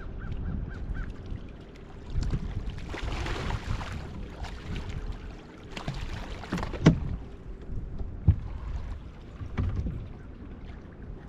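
Wind buffeting the microphone on a small fishing boat as a low, gusting rumble, with a burst of hiss a few seconds in and sharp knocks against the boat about two thirds of the way through.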